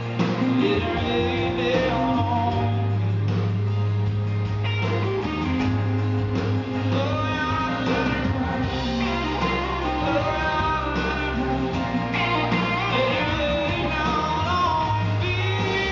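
Live country-rock band playing a song at a concert: strummed acoustic guitar, bass and drums, with a male lead vocal.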